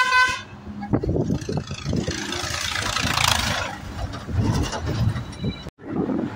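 Bus running along the road, heard from inside the cabin, with a short vehicle horn toot right at the start and a rushing hiss about two to three and a half seconds in. The sound cuts out abruptly near the end.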